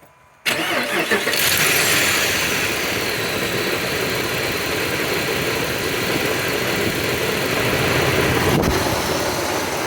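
Cold start of a 2007 Dodge Ram Power Wagon's 5.7-litre Hemi V8: a brief click, then the engine fires about half a second in, flares up and settles into a steady fast idle. The suspected exhaust or lifter tick is not audible; the owner calls the engine very quiet.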